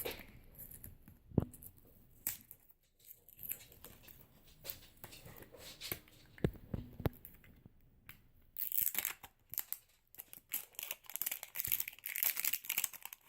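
L.O.L. Surprise wrapper being torn and crinkled open by hand. Scattered clicks and rustles come first, then steady crinkling from about eight seconds in.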